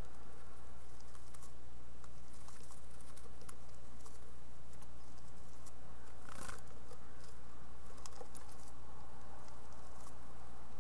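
House finch fledglings moving about inside a wooden nest box: light scratching and tapping of claws and wings on the wood and loose seed, with a louder flurry of wings about six and a half seconds in, over a steady low hum.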